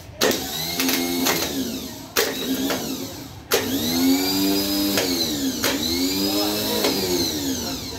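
Swaraj tractor starter motor run off a battery with no load, whirring in three runs, each switched on with a sharp click. The first two are short and the last is longer, its pitch swinging up and down. It is a bench test of the cleaned starter, which spins freely and is judged to be working properly.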